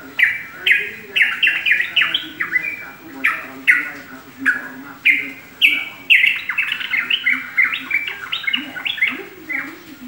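Caged yellow-vented bulbul (trucukan) singing: a run of short, bright chirping notes that gets faster and denser about six seconds in.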